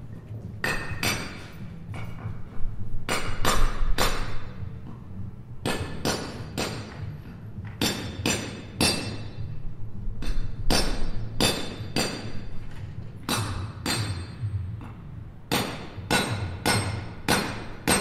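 Construction-site hammering: irregular hammer blows, often two or three in quick succession, over a steady low hum.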